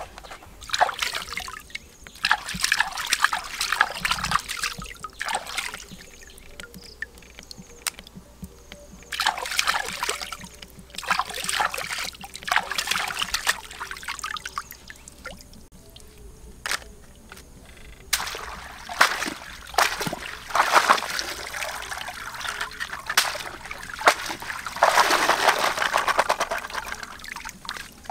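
Water splashing and trickling in repeated bursts as live mud crabs are swished by hand in a muddy pool, rinsing the mud off them.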